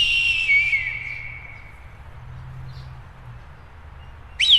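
Eagle's scream: a shrill call that jumps up and then slides down in pitch, trailing off over about two seconds. A second scream of the same shape begins near the end.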